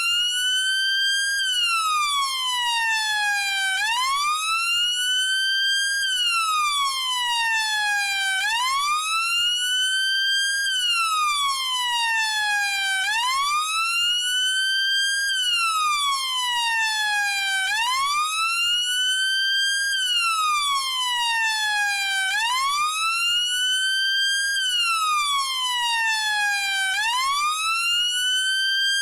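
British police car siren on its wail setting: a tone that climbs in about a second and a half, then slides slowly back down over about three seconds, repeating evenly about every four and a half seconds.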